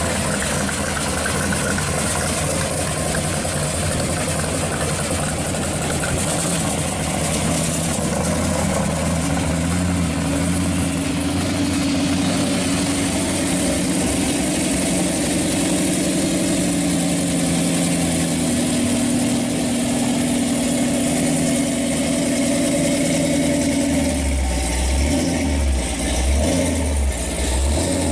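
Supercharged pro street Chevy V8 idling steadily with a lumpy, loping beat that grows plainer in the last few seconds.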